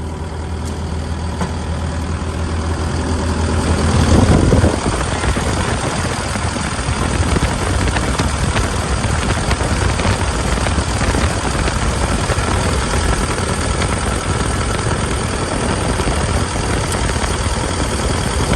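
Hitachi ZX135US-3 excavator's diesel engine running at idle, a steady low hum. About four seconds in there is a loud thump, and after it the engine is heard louder and rougher, close up, as it is checked for blow-by.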